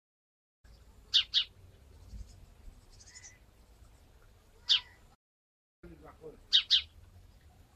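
A bird chirping: short, sharp chirps, a quick pair about a second in, a single one near five seconds and another pair near seven, over a faint low background hum.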